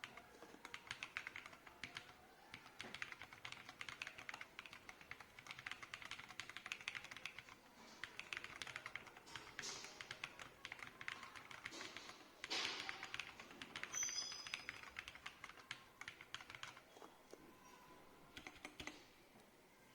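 Typing on an AJAZZ AC081 mechanical keyboard: a fast, continuous run of keystrokes, busiest about two-thirds of the way through, then thinning out and stopping shortly before the end.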